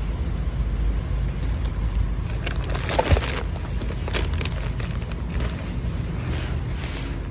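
Plastic food packaging and the fabric of an insulated cooler bag rustling and crinkling as groceries are packed in, with a sharper crackle about three seconds in, over a steady low rumble.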